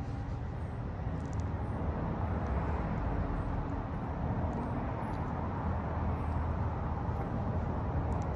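Steady low rumbling background ambience with no distinct events, growing slightly louder after about two seconds.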